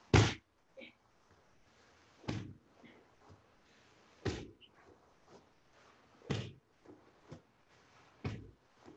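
Dull thuds of bodies landing on a jiu-jitsu grappling mat about every two seconds, as a partner drill in the guard is repeated rep after rep, with a few lighter knocks between them.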